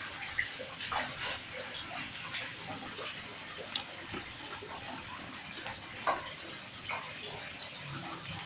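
Live fish flopping and slapping in a bucket with a little water while a hand rummages among them: a wet, splashy churning with scattered sharp splats, the loudest about six seconds in.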